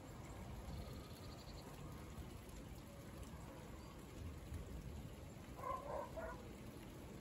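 Faint, steady low rumble, with a short animal call of a few pitched notes about six seconds in.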